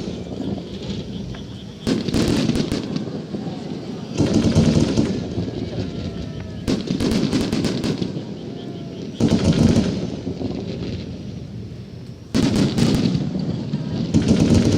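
Aerial firework shells bursting overhead. Six loud booms about two to three seconds apart, each trailing off in a rumbling, crackling decay.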